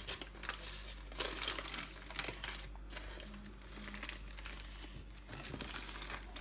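Baking paper and aluminium foil crinkling and rustling in irregular bursts as hands press and roll pastry dough on a foil-lined tray.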